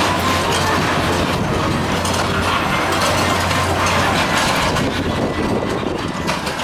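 Hampton Motorcycle Jump kiddie ride running: a steady clatter of many small clicks and rattles over a constant low hum.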